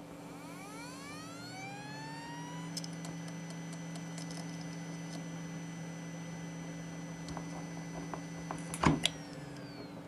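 Western Digital VelociRaptor 10,000 rpm hard drive spinning up, its whine rising over about three seconds and then holding at a steady high pitch over a low hum, with a few light ticks. About nine seconds in there is a sharp click, and the whine starts to fall as the drive spins down.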